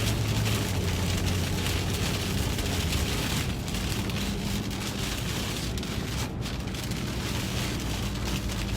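Inside a moving vehicle's cabin: rain on the car in a steady hiss over a constant low hum of engine and road noise.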